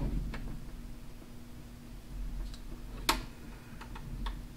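Small metallic clicks and ticks of tiny stainless screws and a hex driver being worked into an RC crawler's beadlock wheel ring. One sharp click comes about three seconds in, followed by a few lighter ticks.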